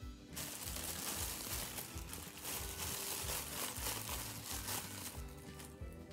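Clear plastic packaging bag crinkling as a heat-press attachment is pulled out of it by hand, over background music with a beat.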